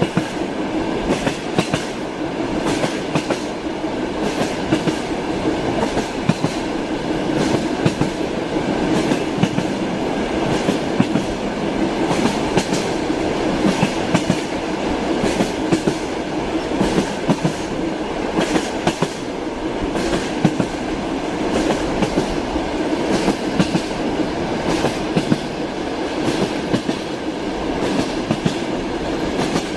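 Train wheels clattering over rail joints: a steady rumble of a moving railway carriage with repeated sharp clicks, often in quick pairs.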